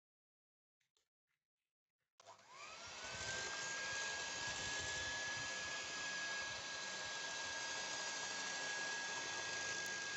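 Electric mixer switched on about two seconds in, its whine rising as the motor spins up and then running at a steady pitch as the beaters whisk runny cake batter of oil, sugar and eggs. The first two seconds are near silence.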